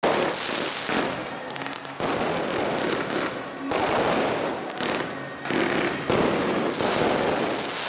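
Firecrackers and fireworks crackling and popping densely and loudly, with abrupt jumps in the sound about two seconds in and again later.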